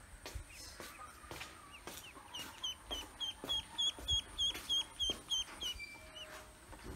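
Ducklings peeping: a quick run of about a dozen high peeps in the middle, three or four a second, with softer scattered peeps around it.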